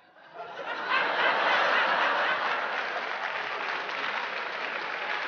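Audience applauding with some laughter. It swells in about half a second in, peaks a second in, then holds while slowly easing off.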